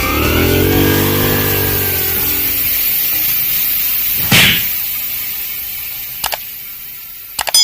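Small motorcycle engine revving up and back down, then running on more quietly, with a sudden loud hit about four and a half seconds in and a few sharp clicks near the end.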